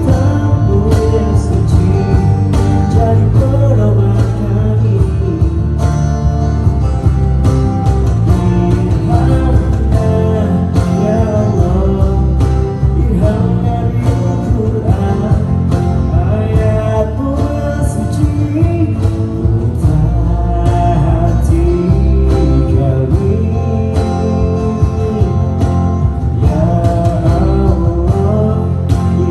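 Live band playing a song, with guitar and a steady bass under a sung melody line.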